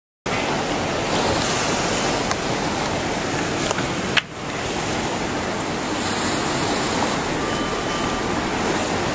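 Steady rushing roar of tsunami floodwater churning and surging, with wind noise on the microphone, starting abruptly. A sharp click and a brief dip in level come about four seconds in.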